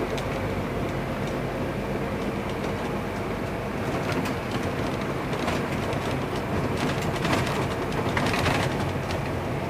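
Car driving over a rough, heavily patched asphalt road, heard from inside the cabin: a steady engine and tyre rumble with rattles and knocks as the wheels run over the patches and potholes, busier in the second half.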